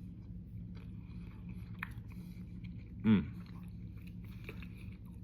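A person eating, with faint chewing and small clicks over a steady low hum. About three seconds in there is one brief voice-like sound that falls in pitch.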